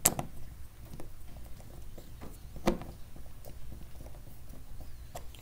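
Hand screwdriver turning a stainless screw into a padeye on a plastic kayak hull: scattered light clicks and knocks of the tool and screw, with a sharper click right at the start and another a little before the middle.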